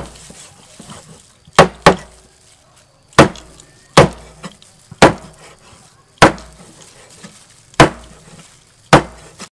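A cleaver chopping raw bone-in chicken on a thick wooden chopping block: eight sharp chops, roughly one a second, the first two in quick succession.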